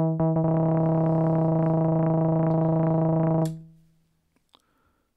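Roman Filippov 208r Buchla Easel clone synthesizer playing a steady-pitched note retriggered by its self-cycling envelope generator: the repeating notes quicken until they run together into a continuous rapidly pulsing tone. The tone fades out about three and a half seconds in, followed by a faint click.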